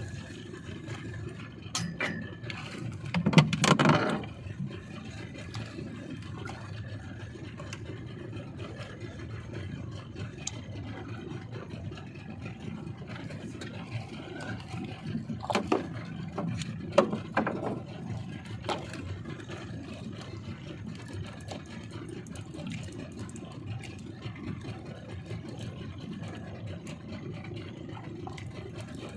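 Boat engine running steadily at low revs, with a clattering bump a few seconds in and a few sharp knocks a little past the middle.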